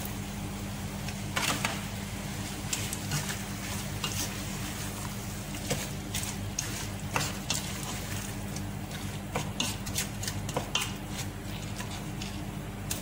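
Chopped tomatoes tipped into a stainless steel pot of chicken, then a wooden spoon stirring them in, with scattered clicks and scrapes of the spoon against the pot.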